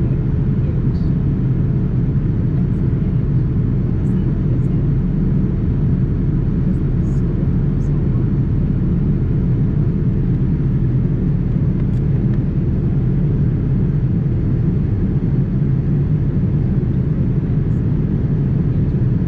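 Steady in-flight cabin noise of a Boeing 787-9 after takeoff: the Rolls-Royce Trent 1000 engines and the airflow make an even, deep rumble that does not change, with a few faint ticks.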